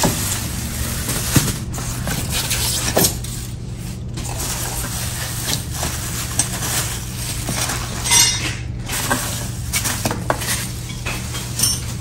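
Unpacking the metal parts of a rolling laptop stand: plastic wrapping rustling and crinkling, with scattered light clinks and knocks of the metal pieces and bagged hardware against each other and the cardboard box. The crinkling is densest about eight seconds in.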